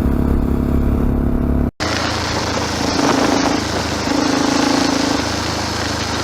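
Motorcycle engine running steadily while riding. After a short break about two seconds in, wind rush covers it, with the engine note coming and going underneath.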